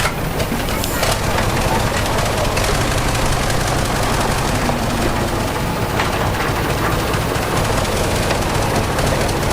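Heavy diesel earthmoving machinery running close by: a steady low engine sound with a rapid clattering rattle.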